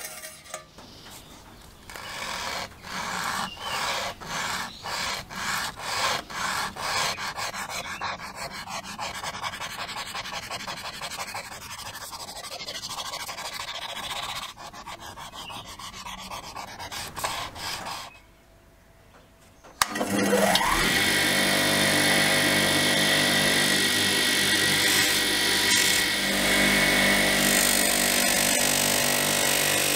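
Hand sanding of red paint: rhythmic rubbing strokes that quicken into denser scrubbing. After a short pause, a bench buffing machine spins up with a rising whine and runs steadily with a high steady tone while a small brass tube is buffed on its wheel; this machine is the loudest sound.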